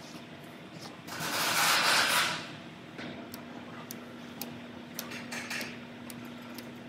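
Panel bond being laid with an applicator gun: a loud hiss lasting about a second, starting about a second in, then a faint steady hum with scattered light clicks while adhesive beads go onto the door frame.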